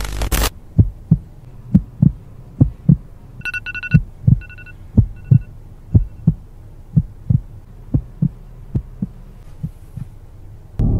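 Heartbeat sound effect: a steady lub-dub double thump about once a second. A few short electronic beeps, fading, come around four to five seconds in.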